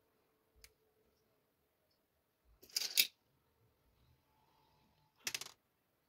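Pearl beads clicking and rattling against each other and the tray as fingers pick them out, in two short bursts, one about three seconds in and one near the end, after a faint single click.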